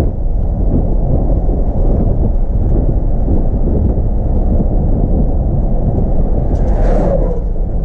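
Wind buffeting the microphone: a loud, constant low rumble. Near the end a short sound with a falling pitch cuts through it.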